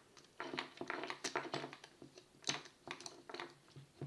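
Scattered small clicks and taps of hand work on a 12-volt cordless-drill motor, trying to remove its end piece, whose front screw is jammed. The clicks come in short clusters, about a second in and again near the middle and after.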